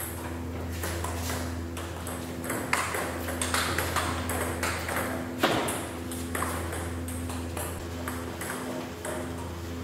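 Table tennis ball clicking off rubber paddles and the table during a rally, with irregular sharp hits, a few of them harder smashes. A steady low hum runs underneath.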